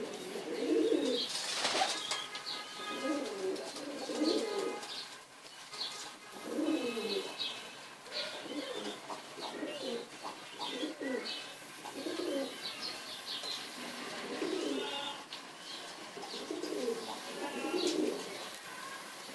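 Pigeons cooing over and over in short repeated phrases, with faint high chirps from small birds above them. A brief flutter of wings comes about two seconds in.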